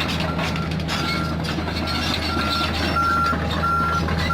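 Komatsu PC45 mini excavator's diesel engine running steadily, with a backup alarm beeping at an even pace, about one and a half short beeps a second.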